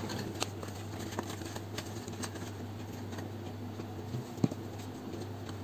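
Card paper model handled and pressed while glue is applied: faint scattered rustles and small clicks of card, with one sharper tick about four and a half seconds in, over a steady low hum.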